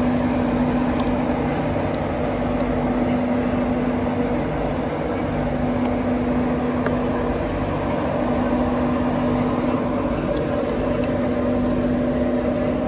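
A train standing at the platform, running with a steady, unchanging hum: a low drone with a higher tone above it. A few faint clicks.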